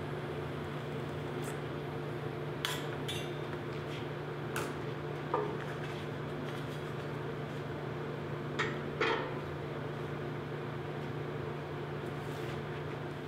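Steel nightstand frame knocking and clinking against a steel welding table as it is lifted, turned and set down: several separate sharp metallic clanks over a steady low hum.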